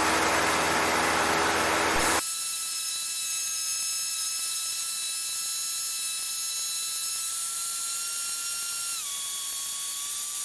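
Radio hiss with a low hum that cuts off sharply about two seconds in. After that there is a steady, thin, high-pitched electrical whine of several tones in the aircraft's headset audio, which steps down in pitch near the end.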